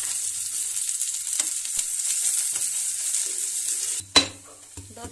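Chopped onions sizzling steadily in hot mustard oil in a steel kadhai, with a few sharp pops. About four seconds in the sizzle drops away suddenly and a metal ladle strikes the pan once, loudly, as stirring begins.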